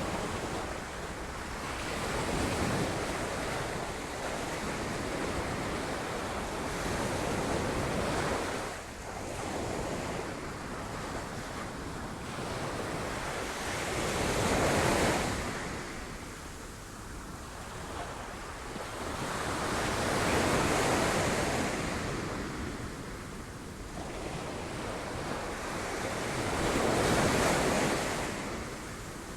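Sea waves breaking against rocks: a continuous wash of surf that surges to a crash and draws back about every five to seven seconds, five swells in all, the loudest about halfway through and near the end.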